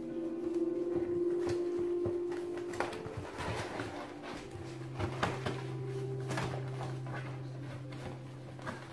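Border collie puppies scuffling over and chewing a small cardboard box on a wooden floor: irregular rustling, scraping and tapping of cardboard and paws. Steady held tones run underneath.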